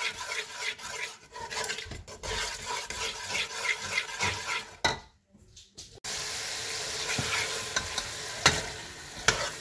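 A metal spatula stirring and scraping a spice, tomato and yogurt masala in a pressure cooker while the masala sizzles in hot oil. The sound drops out for about a second, about five seconds in, then comes back as a steadier sizzle broken by a few sharp knocks.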